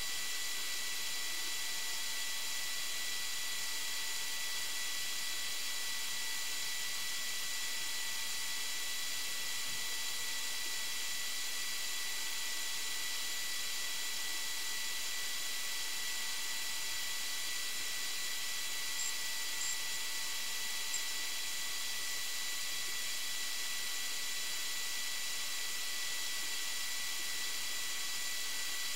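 Steady hiss with a faint, high, unchanging whine, with nothing low or rumbling under it. It sounds like the recording device's own electronic noise rather than waves or wind. A few faint ticks come about two-thirds of the way through.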